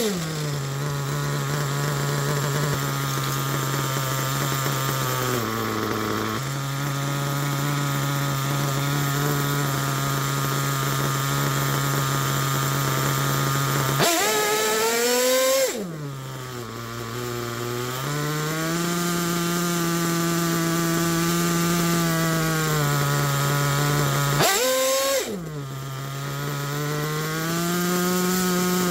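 Picco P3TT two-stroke nitro engine in an RC buggy idling steadily. It is revved sharply twice, about halfway through and again near three-quarters, and after each rev the idle sags low before settling back. The engine is worn and has been rebuilt with a new rear bearing.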